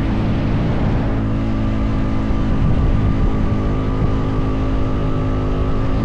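Honda Foreman 520 ATV's single-cylinder engine running at a steady speed, pitch holding constant, over a steady rush of wind or ground noise.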